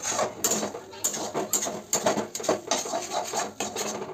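Spatula scraping and tossing noodles against the inside of a metal kadai in quick scraping strokes, about three a second.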